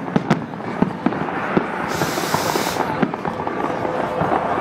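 Aerial fireworks shells bursting in quick succession: a run of sharp pops and crackles, with a short hiss about two seconds in.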